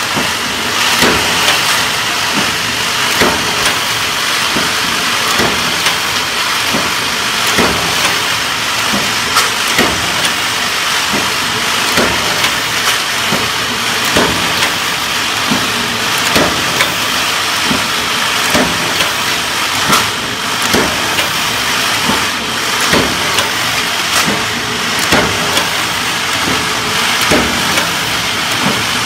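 Automatic bolt-forging line with induction heating running: a steady loud hiss with sharp metallic knocks roughly once a second at an uneven pace, as the heated billets are fed and handled.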